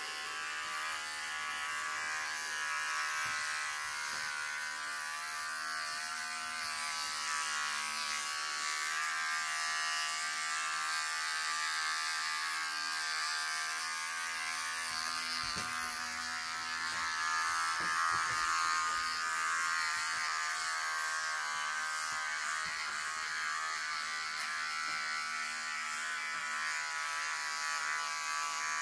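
Cordless electric hair clippers running with a steady buzzing hum as they are pushed through short hair on a man's head.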